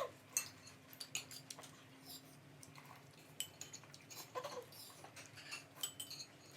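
Spoons and cutlery clinking lightly on plates and bowls during a meal, in scattered small clicks, with one short voice-like sound about four and a half seconds in.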